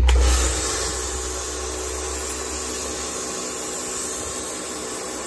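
Kärcher pressure washer jet spraying water onto a carpeted car floor mat: a steady hiss that starts abruptly, with the washer's motor humming underneath.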